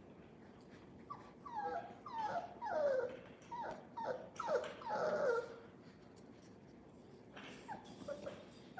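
One-month-old fox red Labrador puppy whimpering: a string of short high cries, each falling in pitch, for about four seconds from a second in, then a few fainter ones near the end.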